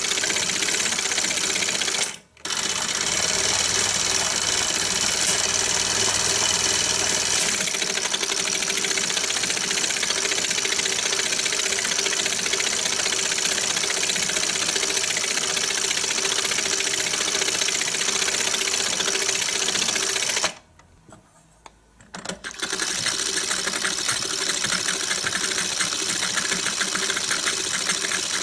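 1920s Pathé 9.5mm film projector running, its mechanism making a rapid, steady clatter as the film goes through the gate. The sound drops out briefly about two seconds in and again for about two seconds later on.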